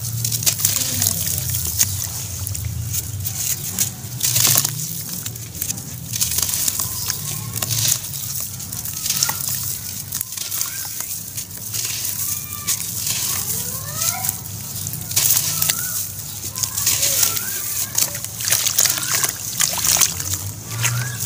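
Wet slabs of charcoal ash crushed and crumbled by hand in a tub of water: a run of soft crunches and squelches with water sloshing.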